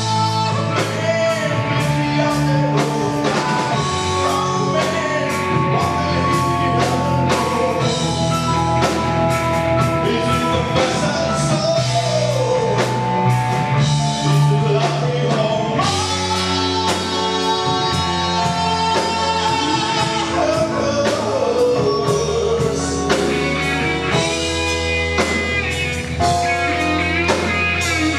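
Rock band playing live: drum kit and electric guitar with a man singing, loud and continuous.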